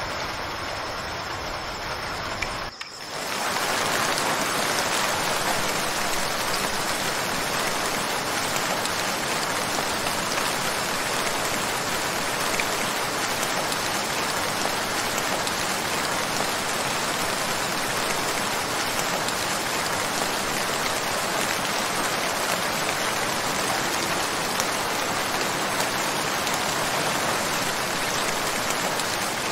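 Steady rain sound effect, an even hiss of falling rain. It starts suddenly about three seconds in, replacing a different steady noise with a faint high whine that cuts off.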